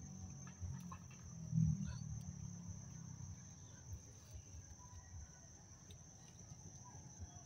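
A steady high-pitched insect drone over low rumbling, with one louder low swell about one and a half seconds in and a few faint clicks.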